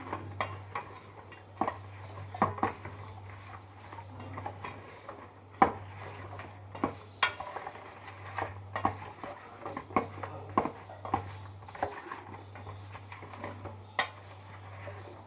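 Kitchen utensils and dishes clinking and knocking irregularly, several light knocks a second with a few louder ones, as vegetables are handled into a dish. A steady low hum runs underneath.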